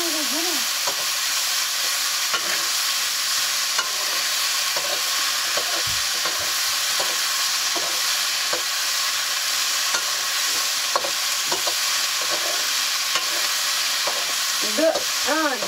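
Food frying in a black iron wok over a wood fire: a steady sizzle, with light clicks and scrapes of a spatula stirring against the pan now and then.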